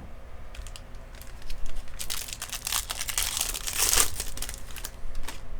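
Foil trading-card pack wrapper crinkling as it is torn open and handled: a few sharp crackles, then a dense run of crinkling for a couple of seconds in the middle, and a last few crackles near the end.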